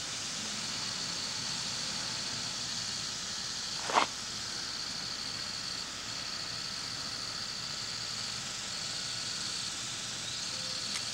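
Steady background hiss with a thin, high, steady whine that breaks off a few times, and one sharp click about four seconds in.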